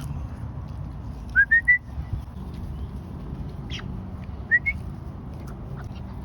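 Muscovy duck squeaking: short, high, rising whistle-like peeps, three in quick succession about a second and a half in and two more near four and a half seconds, over a steady low background rumble.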